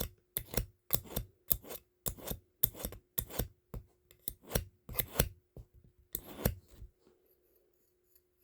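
A knife blade being sharpened by hand, drawn in quick strokes against a sharpener at about two a second, stopping about seven seconds in.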